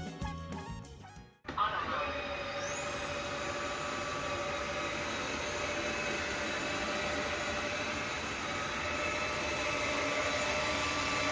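Background music fades out, then a Tineco Floor One Stretch S6 cordless wet-dry vacuum mop switches on about a second and a half in. Its motor whine rises in pitch as it spins up, then it runs steadily.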